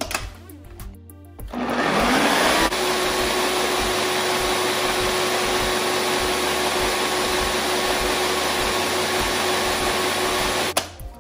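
Food processor motor switches on about a second and a half in, rising in pitch as it spins up, then runs steadily, blending eggs and garlic into an aioli emulsion as oil is poured in, and cuts off suddenly near the end. Background music with a beat plays underneath.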